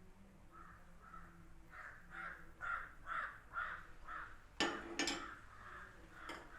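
A crow cawing in a quick run of about eight caws, about two a second. A few sharp knocks follow near the end.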